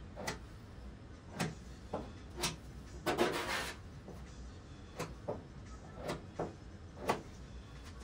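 Plastic body-filler spreader scraping and dabbing All-Metal filler along the welded seam of a steel quarter panel: a string of short strokes, with one longer, louder scrape about three seconds in.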